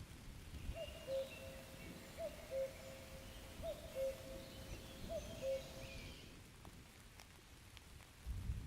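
Faint outdoor ambience with a bird repeating a low two-note call four times, evenly spaced, each a short upward slide and then a held note. Fainter, higher bird chirps run underneath.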